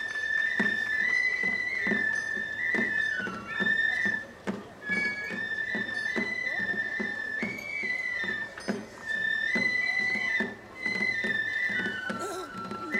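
Festival music: a high-pitched flute plays a melody, pausing briefly now and then, over a steady drum beat of about two strokes a second.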